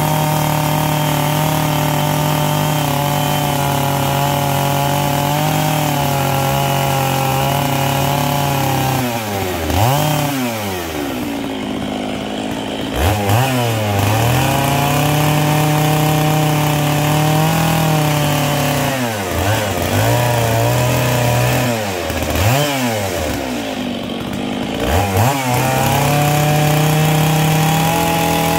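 Stihl 660 two-stroke chainsaw running at high revs, steady for the first nine seconds or so. After that the revs drop sharply and climb back about five times as the throttle is let off and squeezed again, with steady stretches in between.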